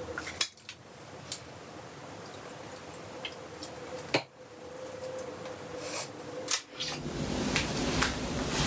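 Kitchen handling sounds: a few sharp clicks and knocks, about half a second in, around four seconds and again near six and a half seconds. They come as a plastic bottle and measuring spoons are handled over a steel mixing bowl, over a faint steady hum.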